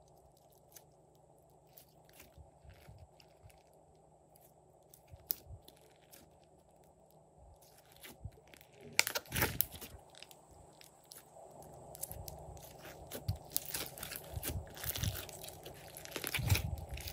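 Glossy slime being squished, pressed and folded by hand, making sticky clicking and crackling pops. It is faint and sparse at first, then louder and denser from about halfway through.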